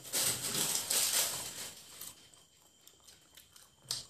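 Close-up eating sounds of fried chicken legs being torn apart with the fingers and chewed: soft crackling, clicks and mouth sounds, fuller in the first two seconds and fainter after, with a short louder burst near the end.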